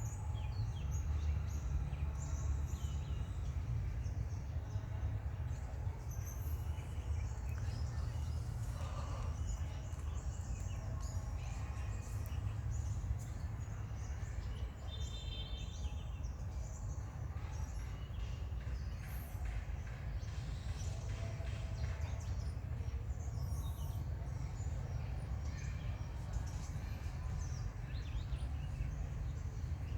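Steady low rumble of outdoor ambience, with scattered faint high chirps and a short pitched call about fifteen seconds in.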